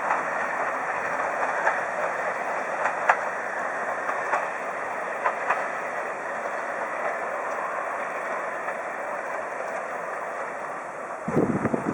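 Railway carriages rolling past on the track: a steady rush of wheels on rail with scattered sharp clicks as the wheels cross the rail joints, easing slightly as the train goes by. Near the end a low rumbling buffet starts up.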